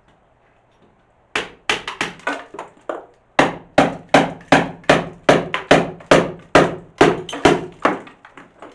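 Hand hammer striking old masonry, knocking out the stone window header: a rapid series of sharp blows, about three a second, with a short pause about three seconds in.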